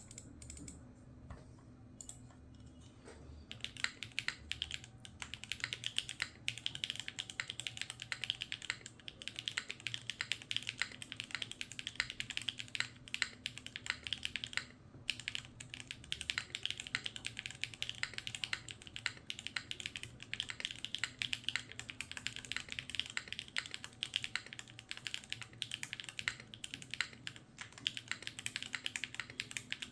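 Typing on a Cycle7 gasket-mount mechanical keyboard with Gateron Raw switches, a carbon fibre plate, GMK keycaps and no dampening foam. A few scattered keystrokes, then fast continuous typing from about three and a half seconds in, with a brief pause about fifteen seconds in.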